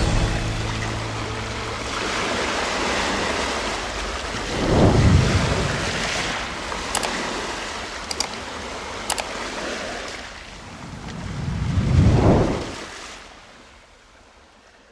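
Sea waves washing against the shore, with two larger swells about five and twelve seconds in and a few short clicks in between. The sound fades out near the end.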